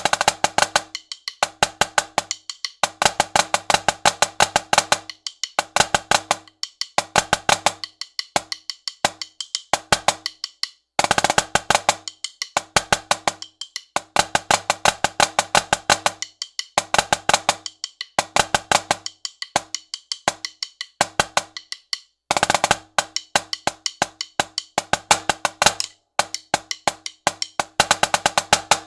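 Marching snare drum played with sticks: a rudimental solo of fast rhythmic strokes and accents. Longer rolls come about eleven and twenty-two seconds in, between phrases broken by brief pauses.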